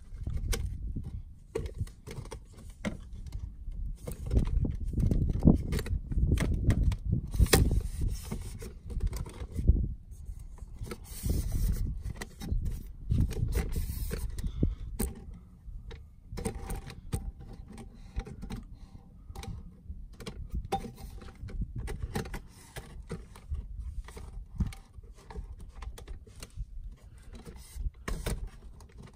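Rustling handling noise with many scattered clicks and light metallic clinks. A heavier low rumble runs through the first half.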